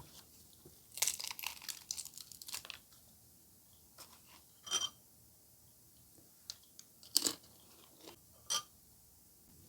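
Crisp crunching and crackling sounds: a quick flurry for about two seconds near the start, then three single crunches spaced about a second and a half apart.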